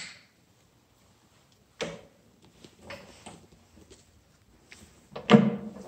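Knocks and clunks of the metal suction-cup frame and fittings of a phone-screen separator machine being handled and lifted: a sharp click about two seconds in, a few faint knocks, and a louder clunk with a brief ring near the end.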